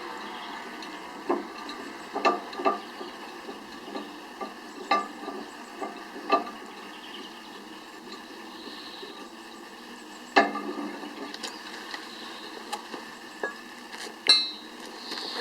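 Log splitter at work on firewood: irregular sharp knocks and clacks of wood and metal over a steady low hiss, the loudest about ten and fourteen seconds in.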